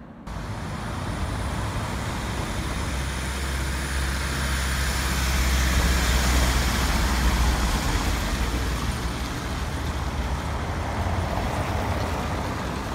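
Sightseeing road train driving past on a cobbled street: a low engine drone with tyre and road noise, growing loudest about halfway through as it passes, then easing off as it moves away.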